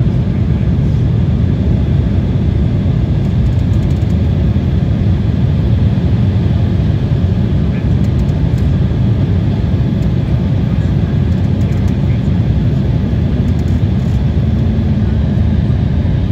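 Steady cabin noise of an airliner in flight: a loud, even rumble of engines and airflow heard from inside the cabin.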